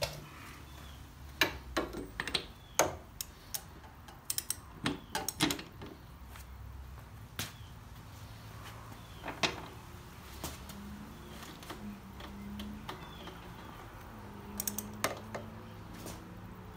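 Irregular sharp metallic clicks and clinks from a torque wrench and socket being handled on a motorcycle's rear axle nut, several in quick succession in the first few seconds, then sparser.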